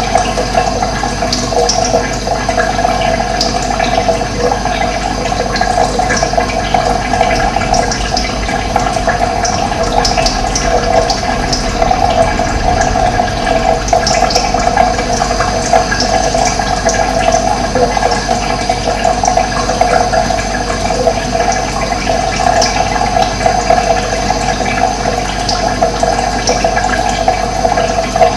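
Running water rushing steadily, with short high bird chirps scattered over it.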